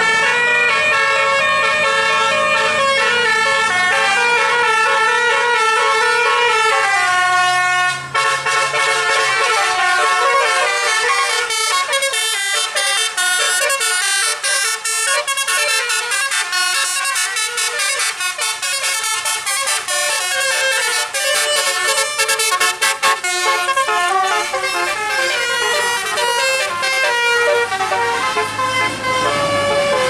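Telolet horns of tour buses playing continuous multi-note melodies, the pitch stepping from note to note without a break. Two buses' horns sound together, several notes at once.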